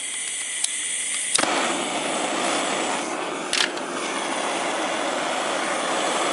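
Handheld gas blowtorch running on its canister: a hiss with a faint whistle, then a sharp pop about a second and a half in, after which the flame gives a loud, steady rushing noise, with a second pop a couple of seconds later.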